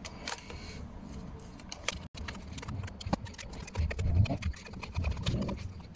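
Scattered light clicks and knocks of hands working on a distributor cap and its spark plug leads as the cap is tightened down.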